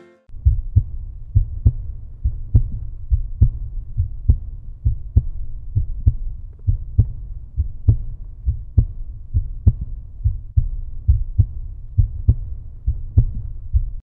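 End-card music: a deep, pulsing heartbeat-like beat thumping steadily a little under once a second.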